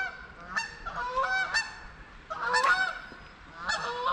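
Geese honking: a run of short, nasal calls in quick succession, some overlapping.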